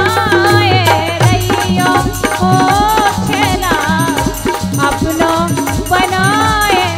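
Instrumental break in a Bundeli folk song: a wavering melodic lead line over a steady, rhythmic drum beat with rattling percussion.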